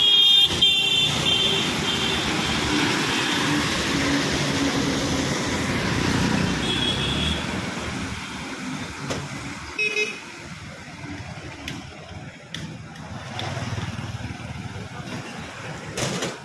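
Road traffic with a red MSRTC bus's diesel engine rumbling past close by and then moving away, along with motorcycles. Vehicle horns toot in a quick run of short blasts at the start, again about seven seconds in, and once more about ten seconds in.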